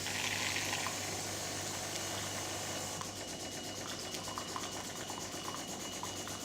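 De'Longhi Magnifica ESAM04 coffee machine's pump running with a steady hum as hot water pours from the water spout into a cup, purging an air blockage from the water circuit. It is a little louder in the first second, then settles.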